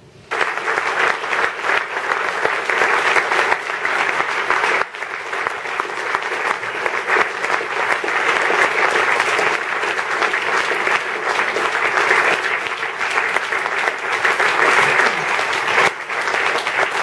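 Audience applauding: dense clapping that starts suddenly and keeps up, with a brief dip about five seconds in.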